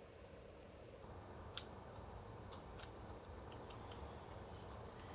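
Faint, scattered metallic clicks of a 1911 pistol's parts being handled during reassembly, with the sharpest click about one and a half seconds in.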